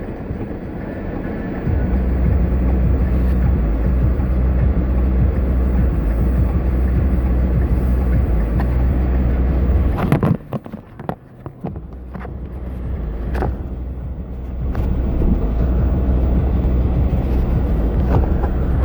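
A motor vehicle's engine running with a steady low hum. It drops away about ten seconds in, with a few sharp knocks, then comes back up and runs steadily again.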